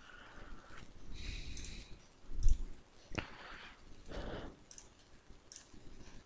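A few computer mouse clicks, the sharpest about three seconds in, with fainter clicks and handling noise between.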